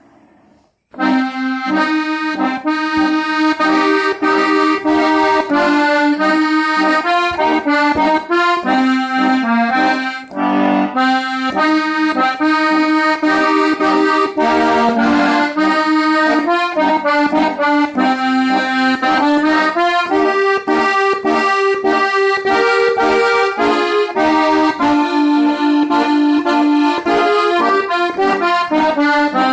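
Accordion playing an instrumental folk tune with sustained chords and a melody, starting about a second in.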